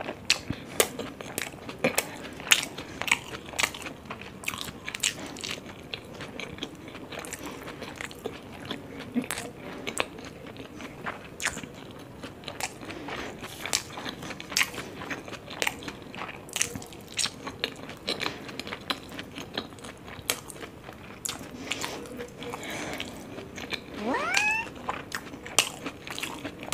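Close-miked chewing and biting of dumplings: an irregular run of sharp clicks and smacks. Near the end there is one short pitched sound that rises in pitch.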